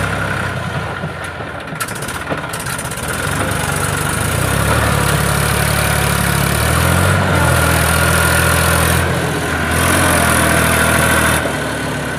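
Eicher 480 tractor's diesel engine running while the tractor is stuck in mud and straining to climb a bank. It revs up and is held under load about four seconds in, eases briefly once, and drops back near the end.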